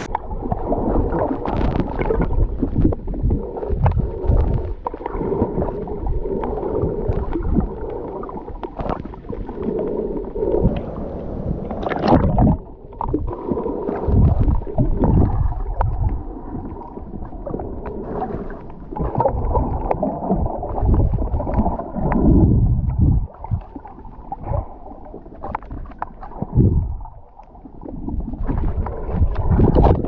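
Muffled water sloshing and gurgling heard underwater while snorkelling, with irregular thumps and swells in level.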